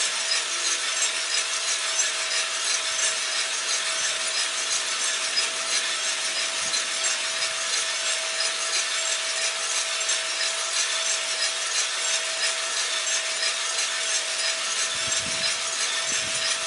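Cormorant CR600 gas coffee roaster running mid-roast: coffee beans tumbling and rustling in the rotating drum over the steady rush of the exhaust fan and gas burner, with a steady hum. The beans are still in the drying phase, before dry end and first crack.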